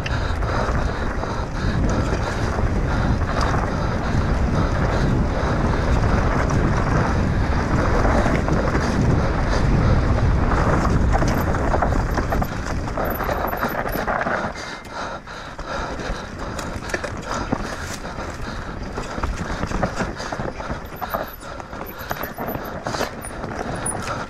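Wind buffeting an action camera's microphone on a fast mountain-bike descent, with the bike clattering and rattling over rough trail. The low wind rumble drops off about halfway through, leaving the rattles and tyre noise more exposed.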